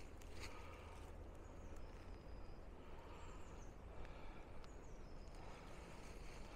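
Footsteps of someone walking slowly over snowy leaf litter, faint, with a steady low rumble underneath. A few thin, high bird whistles sound through the middle, some sliding in pitch.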